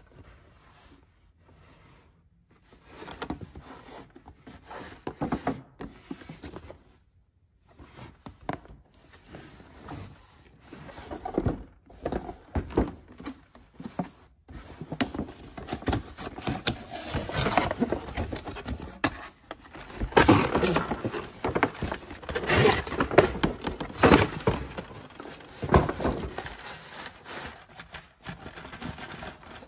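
A cardboard toy box with a clear plastic window is handled and opened by hand: card and plastic scraping, rustling and tapping in irregular bursts, busiest and loudest in the second half.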